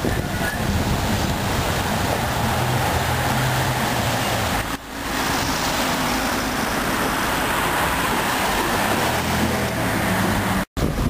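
Outdoor street ambience: steady traffic noise and wind, with a low rumble that swells now and then. The sound dips briefly about halfway and cuts out for an instant near the end.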